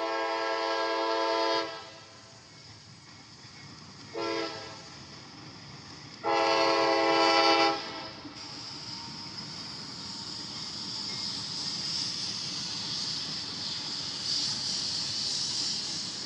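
CSX diesel freight locomotive's chime air horn sounding three blasts: long, short, long. After them the noise of the approaching train builds steadily.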